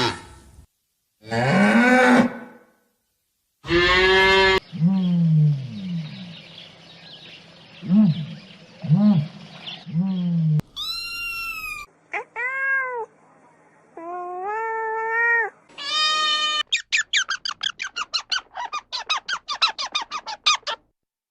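A string of different animal calls played one after another, most of them short arched or rising cries, ending in a rapid run of short repeated calls about ten a second.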